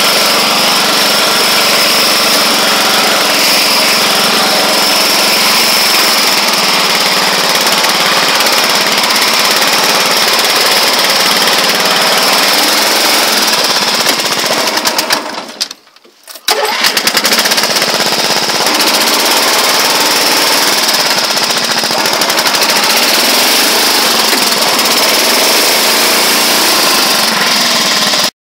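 1979 Roper lawn tractor's 8 hp engine running steadily, loud and close. The sound drops out briefly about halfway through, then returns, and cuts off abruptly near the end.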